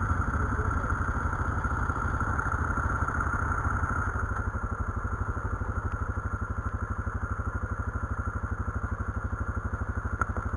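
Quad bike engine running, working harder for the first few seconds, then settling to an even, pulsing idle about four seconds in.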